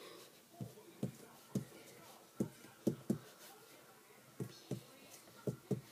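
A series of soft, short knocks at an uneven pace, about ten in all, some coming in quick pairs.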